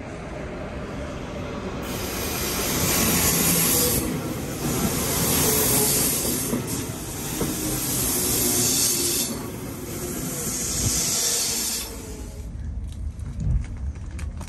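SBB double-deck train pulling in along the platform: a loud, high hiss of wheels and brakes that rises and falls in several waves for about ten seconds. Near the end it drops to a quieter rumble with scattered clicks.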